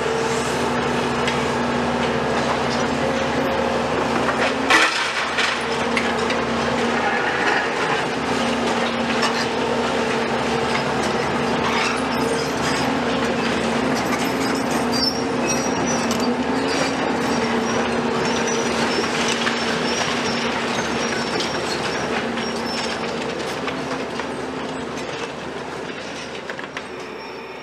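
Demolition excavators running, a Volvo EC250 and a CAT 374F, with a steady hum over clattering steel and concrete rubble, and one sharp clank about five seconds in. The sound fades out near the end.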